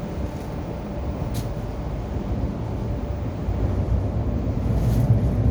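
MTR Kwun Tong Line Q-Train rumbling, heard from inside the car, with a steady low noise that grows louder over the last couple of seconds.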